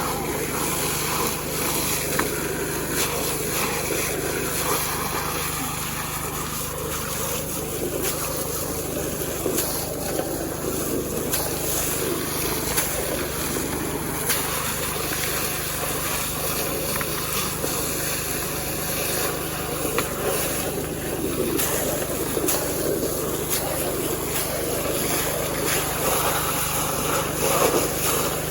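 Small Robin petrol engine running steadily at constant speed, powering the gold-prospecting rig.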